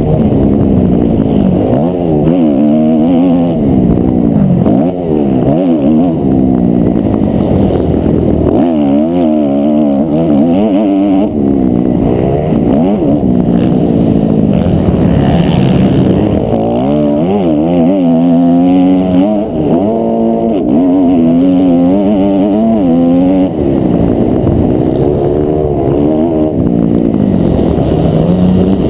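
250 cc four-stroke motocross bike engine at full race pace, loud and continuous, revving up and falling back again and again as the rider opens and closes the throttle through the gears and corners.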